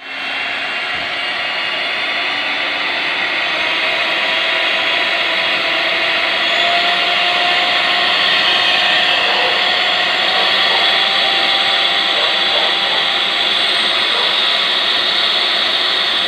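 Imarflex IMX-250 electric hand mixer running with its two wire beaters spinning free in the air. It gives a steady motor whir that grows slightly louder over the first few seconds.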